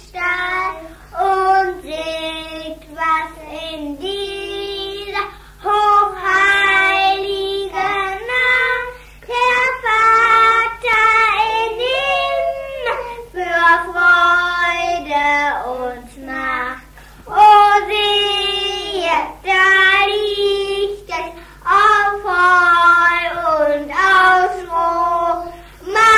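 A child singing a Christmas song, phrase after phrase of held, changing notes with short breaths between. It is an old home recording made on a Philips EL 3300 compact cassette recorder, with a steady low hum underneath.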